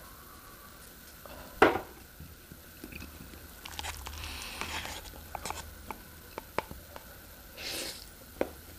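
Close-up eating sounds: a cup set down on a table with one loud knock about two seconds in, then chewing and small clicks of utensils, and a brief slurp of instant noodles near the end.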